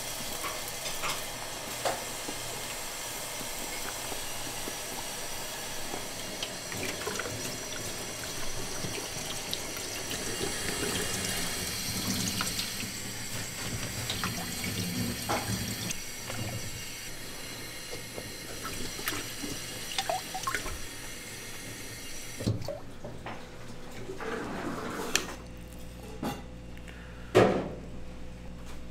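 Kitchen work sounds: a steady hiss with scattered light clinks of utensils, which stops about two-thirds of the way through, followed by a few sharp knocks, the loudest near the end.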